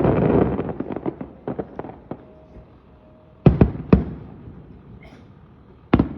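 Fireworks display: a heavy barrage of shell bursts and crackle dying away over the first two seconds, then single sharp bangs, two close together about three and a half seconds in, another a moment later, and one more near the end.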